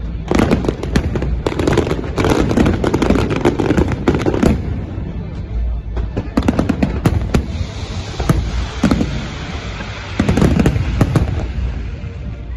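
Dense barrage of aerial firework shells bursting, with rapid overlapping bangs. About four and a half seconds in it eases to a softer crackling hiss, and a fresh cluster of bangs comes about ten seconds in.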